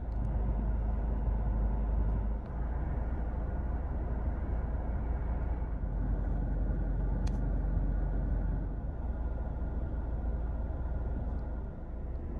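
Steady low rumble of a car heard from inside the cabin: engine and road noise, with one small click about seven seconds in.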